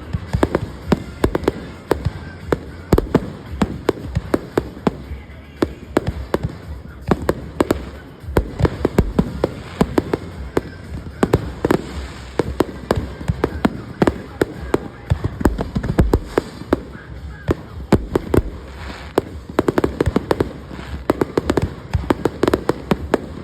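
Fireworks going off in a rapid, continuous string of sharp bangs and crackles, several a second, over a low rumble.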